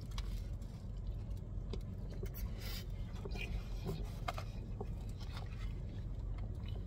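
A person chewing a mouthful of sandwich, with scattered soft clicks and small rustles from handling the food and its container, over a steady low hum inside a car.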